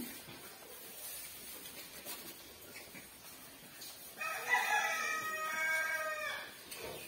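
A rooster crows once, a single call of about two and a half seconds starting a little after halfway, over a low, quiet background.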